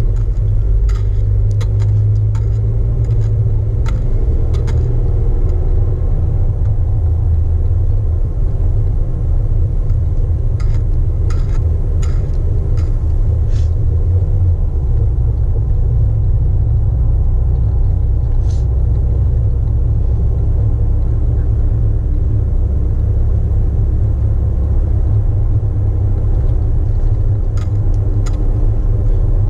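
Jeep Wrangler JK running, a steady low rumble heard from inside the vehicle, with scattered light clicks, several of them between about ten and fourteen seconds in.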